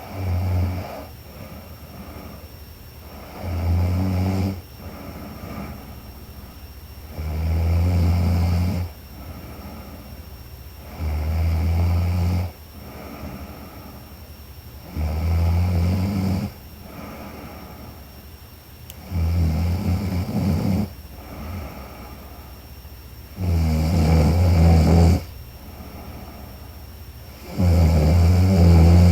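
A woman snoring in her sleep: a low snore about every four seconds, eight in all, with quieter breaths between them.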